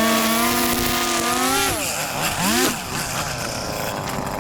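Small two-stroke string trimmer (whipper snipper) engine running at high revs, then twice dropping and revving back up about two seconds in before settling to a lower, quieter speed.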